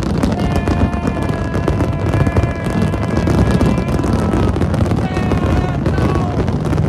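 Music with a held, gliding melodic line, over a steady low rumble.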